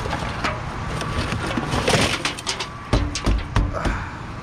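Trash being rummaged through by a gloved hand: plastic bottles and bags crinkling and rustling, loudest about two seconds in, then several sharp knocks and dull thumps in quick succession about three seconds in.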